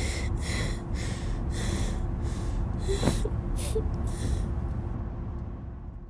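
A person breathing heavily in quick, airy breaths, about two a second, over a low steady rumble. The breaths stop about five seconds in and the rumble fades out.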